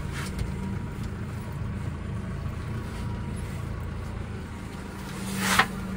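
Tractor engine running steadily, heard from inside the cab, recently started and still cold. A brief rushing hiss comes near the end.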